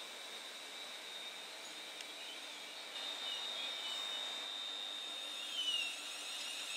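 Class 350 Desiro electric multiple unit's traction equipment whining: a steady high-pitched tone, a drop in pitch near the end, then repeated rising whines as the train pulls out of the station.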